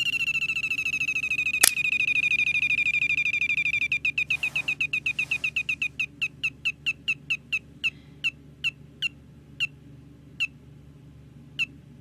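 Novelty slot machine lighter playing its electronic reel-spin effect: a rapid run of short, falling chirping beeps that steadily slows to single beeps more than a second apart, like reels coming to rest. It ends without the winning tune, a losing spin. A sharp click comes about a second and a half in.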